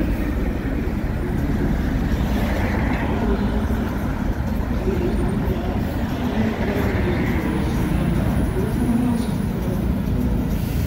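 Busy city road traffic: city buses and cars driving through a bus lane, a steady low engine and tyre rumble, with a bus approaching close by in the second half.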